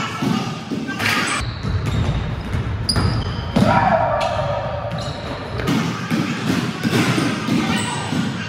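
Basketball bouncing on a hardwood gym court during play, echoing in a large gym hall, with several sharp knocks through the middle and players' voices near the end.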